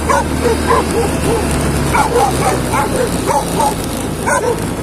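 Dogs barking and yelping in quick runs of short, high calls, over the low hum of a motorcycle engine that fades about three seconds in.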